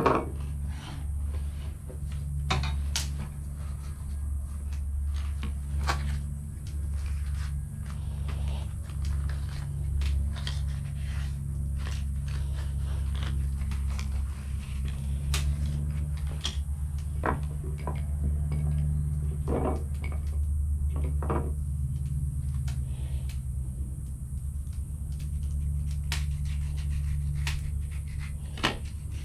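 Cooking sounds of metal utensils and cookware clinking, knocking and scraping in scattered clicks, over a steady low hum.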